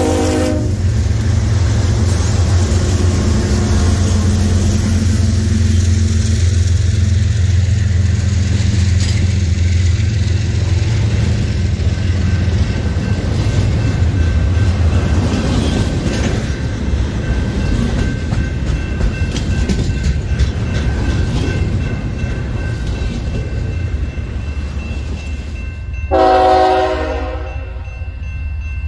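BNSF freight train passing close by. The horn ends in the first second, the diesel locomotives rumble past, and then double-stack container cars roll by with steady wheel noise and a faint high squeal. A horn sounds again for about a second near the end.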